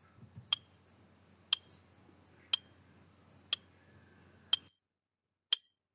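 Countdown-timer tick sound effect: six sharp clock ticks, one each second.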